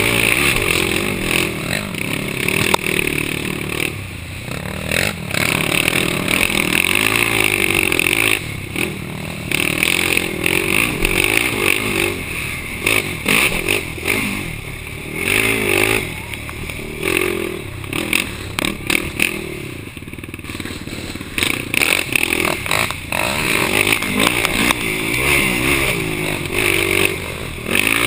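Yamaha YFZ450 ATV's single-cylinder four-stroke engine revving up and down under race throttle, dropping off several times as the rider lets off and then pulling hard again, heard from the rider's helmet, with rattling and clattering of the machine over rough ground.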